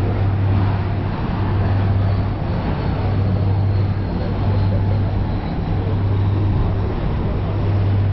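Ferry under way: a steady low engine drone with a constant rushing noise over it.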